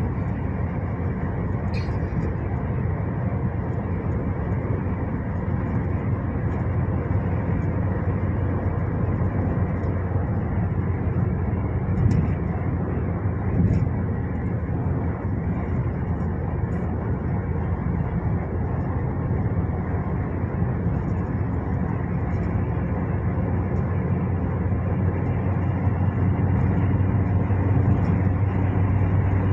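Steady vehicle rumble with a low hum, like a car running on the road.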